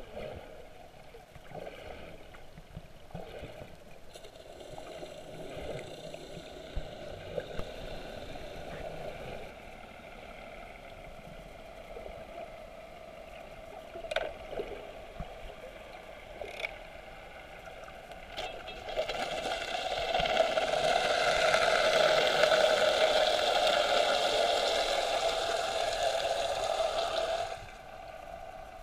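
Muffled underwater noise heard through an action camera's waterproof housing: a steady low rush with a couple of sharp clicks, growing much louder about two-thirds of the way in and cutting off suddenly near the end.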